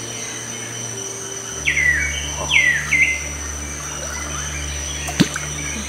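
Forest ambience: a bird gives two falling calls in quick succession, over a steady high insect drone. A low steady hum comes in about one and a half seconds in, and there is a single sharp click near the end.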